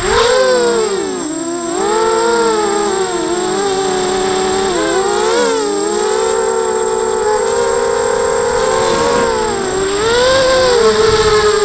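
ZMR 250 mini quadcopter's brushless motors and propellers running in flight, a steady buzzing whine whose pitch rises and falls over and over as the throttle changes.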